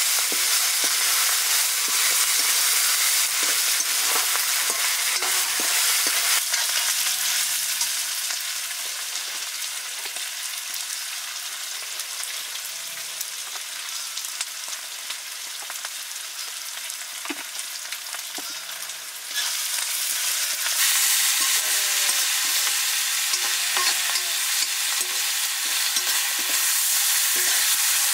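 Vegetable noodles sizzling and being stir-fried in a pan, with a utensil clicking and scraping against the pan now and then. The sizzle quietens through the middle, then comes back louder suddenly about two-thirds of the way through.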